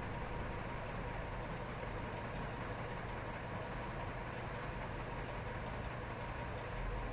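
Steady hiss with a low hum and faint steady tones, with no distinct events; the low hum swells slightly near the end.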